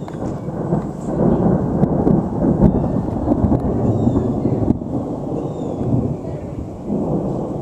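Thunder rolling on without a break: a loud, continuous low rumble that builds over the first second, holds, and eases off near the end. It is strangely constant, like a truck running or a very big air conditioner.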